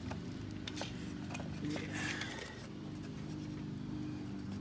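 Plastic seat-control trim piece being handled and pushed into place, with several light clicks and scrapes, over a steady low hum.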